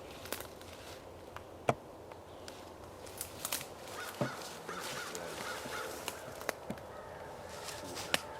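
Footsteps through the woods, with irregular sharp snaps and crunches of twigs and leaves underfoot; the loudest snap comes a little under two seconds in.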